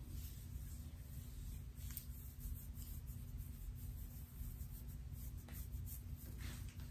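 Long fingernails scratching through short hair on a man's scalp: a few faint scratchy strokes over a steady low hum.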